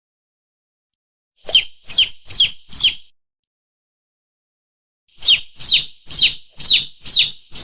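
Lure call for mongoose and monitor lizard: a high, sharp, bird-like call repeated quickly, four times about a second and a half in, then after a pause of about two seconds six more times, each call a quick falling squeal.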